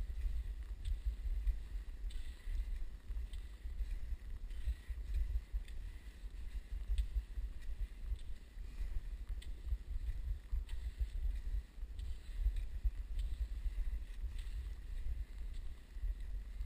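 Cross-country skiing over snow, heard through a body-worn camera's microphone: a low, uneven rumble of wind buffeting the mic, with a faint click or swish a little more than once a second from the skier's strides and pole plants.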